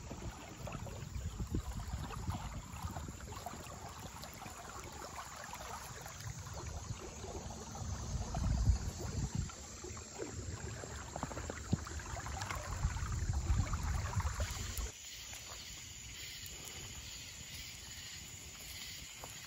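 Wind buffeting the microphone over water and paddling noise from an inflatable kayak moving along a river, in uneven swells. About fifteen seconds in it cuts suddenly to a quieter, steady high hiss.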